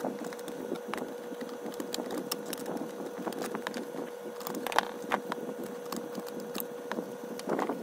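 Hands handling the wiring and plastic housing of an opened blender base, with the motor stopped: scattered clicks, taps and rustling, a few sharper knocks in the second half, over a steady faint hum.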